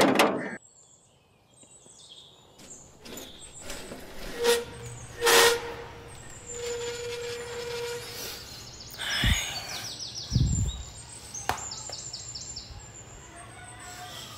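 Outdoor city ambience with scattered knocks and clatters, a held horn-like tone for a few seconds in the middle, and small birds chirping in quick high trills in the second half.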